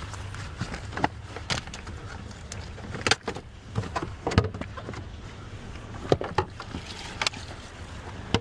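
Clicks and knocks of tire-changing tools at a car's wheel, about eight scattered over several seconds, over a steady low hum.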